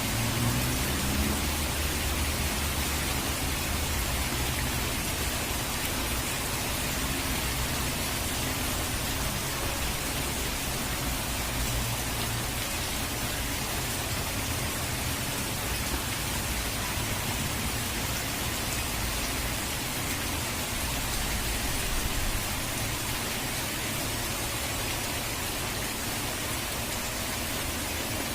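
Rain falling steadily, an even dense hiss, with a low rumble underneath that swells a few times.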